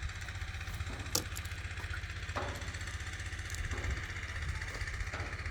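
Mini excavator's engine idling steadily with a low, evenly pulsing rumble, with a couple of light knocks in the first half.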